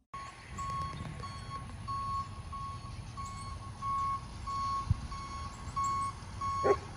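Reversing alarm on a truck backing up, beeping steadily at one pitch about twice a second over the low rumble of its engine, with a single knock about five seconds in.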